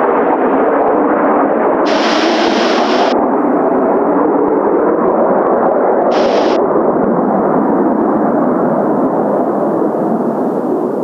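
Kawasaki T-4 jet trainers' turbofan engines roaring steadily as the formation flies past. Two short bursts of higher hiss cut in and out, about two seconds and six seconds in.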